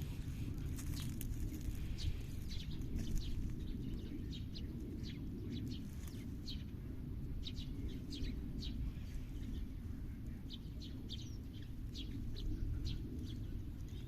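Small birds chirping: many short, high chirps scattered irregularly, over a steady low background rumble.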